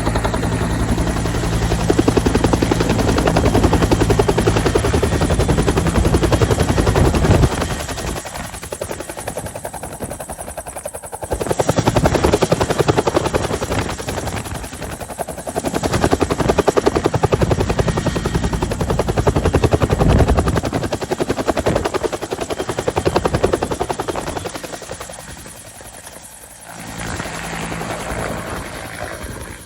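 Helicopter running close by: rapid, even beat of the rotor blades over a steady engine hum. The loudness drops after about seven seconds, then swells and fades several times.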